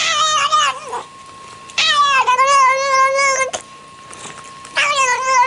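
Cat yowling in three drawn-out, wavering calls, the middle one the longest.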